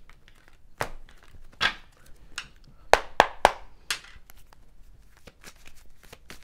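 Tarot cards being handled on a tabletop: a run of sharp card snaps and taps, with three loud ones in quick succession about three seconds in, then fainter ticks.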